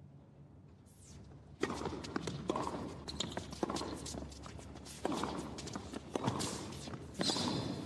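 Tennis serve and rally on a hard court: sharp racket strikes and ball bounces trading back and forth, starting about a second and a half in.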